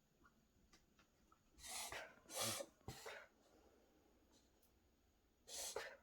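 A dog reverse sneezing: three sharp, noisy breaths pulled in quickly, one after another, about two seconds in, then one more near the end.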